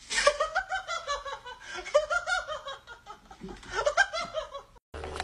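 A person laughing in repeated short bursts, breaking off suddenly near the end.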